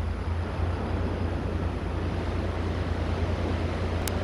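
Steady wind rumble buffeting an outdoor microphone, with a broad hiss over it and a single faint click about four seconds in.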